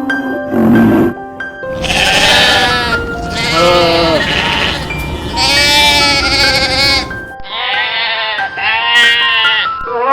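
Several quavering bleats from a sheep or goat-type farm animal, each about a second long, one after another, over background music.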